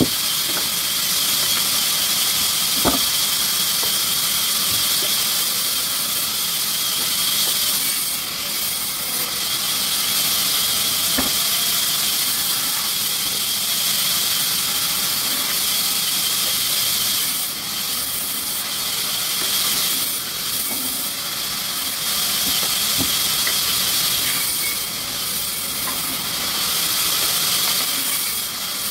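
Sawmill machinery running with a steady high hiss, and a faint click about three seconds in.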